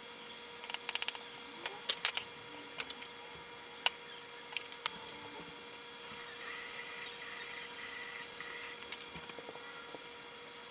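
Chef's knife chopping on a wooden cutting board: a quick run of knocks about a second in, then scattered taps and knocks. From about six seconds in, a steady hiss lasts about three seconds, followed by a few light clicks.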